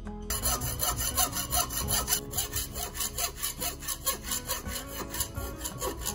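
Hacksaw cutting through a cast bronze sprue in rapid back-and-forth strokes, the steel blade rasping on the bronze. It starts about a third of a second in and stops near the end.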